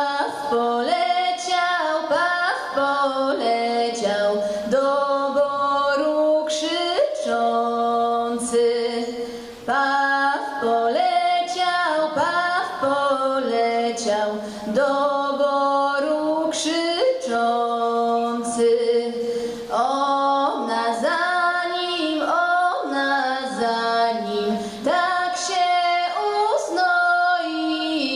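Folk vocal ensemble of mostly women's voices with a few men singing a song together, unaccompanied, in long held sung phrases.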